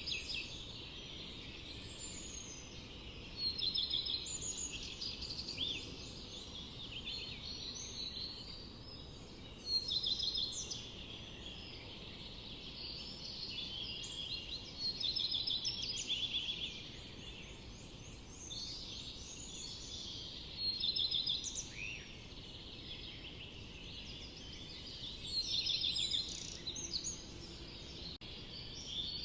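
Several songbirds singing in a forest, their quick chirping phrases overlapping, with louder bursts of song every few seconds over a steady low background noise.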